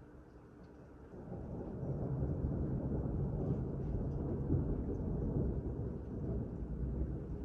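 Thunder: a deep low rumble that swells up about a second in and keeps rolling, rising and falling a little.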